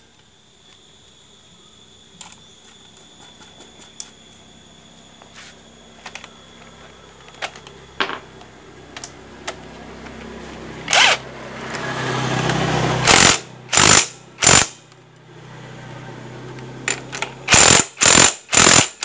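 Impact wrench fired in short bursts, three in a row and then four more near the end, with small clicks of hand tools before them.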